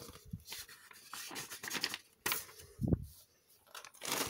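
Intermittent soft rustling and a few small knocks of plastic kit packaging being handled, with the loudest knock about three seconds in.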